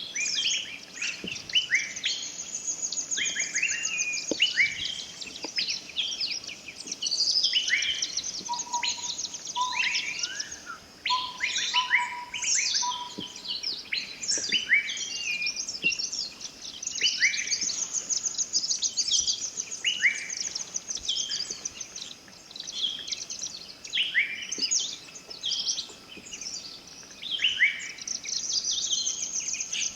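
A chorus of several forest birds singing and calling at once: quick downward-sweeping whistles and high rapid trills. From about nine to thirteen seconds a run of short, lower whistled notes joins in.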